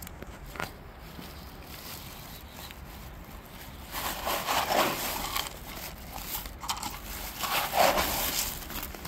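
Dry cat kibble poured from a plastic cup onto paving stones, the pellets pattering and crackling in two bursts, about four and about eight seconds in.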